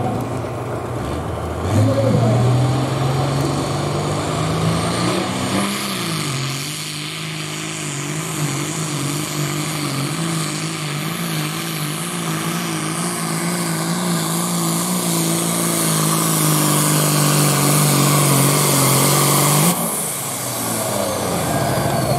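Farm tractor's diesel engine working at full load as it pulls a weight-transfer sled. The engine note climbs about two seconds in, then holds with a wavering pitch, and drops away suddenly near the end as the pull finishes.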